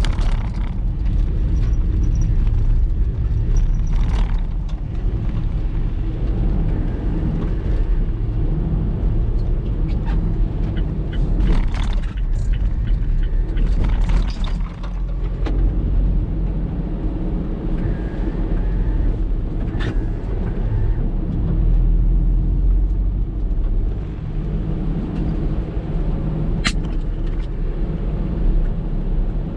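Typhoon wind buffeting the microphone in a steady deep rumble, over the roar of storm surf, with a few brief knocks or rattles.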